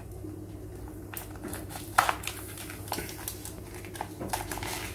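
Scissors snipping through a plastic litter-bag liner, the plastic crinkling, in a run of irregular snips; the sharpest snip comes about two seconds in.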